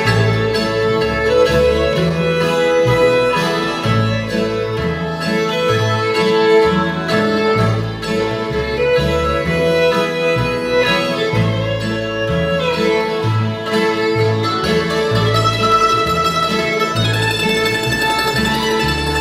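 Acoustic string band playing an instrumental break, the fiddle leading over strummed guitar and mandolin, with a steady walk of low bass notes underneath.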